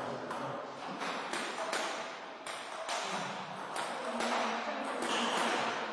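Table tennis balls clicking off bats and tables: a quick, irregular series of sharp clicks, about a dozen, over a low hall murmur.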